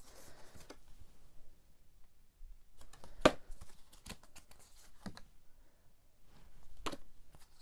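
Cardstock art cards being handled: faint rustling with a few sharp taps, the loudest about three seconds in.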